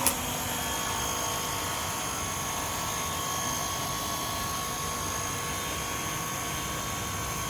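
DeWalt 20V Max cordless power cleaner running: the battery pump motor whines steadily under the hiss of its water jet, starting suddenly as the trigger is pulled.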